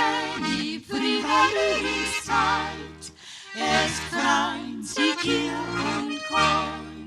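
Alpine folk music played on an accordion over a steady bass line, in short phrases.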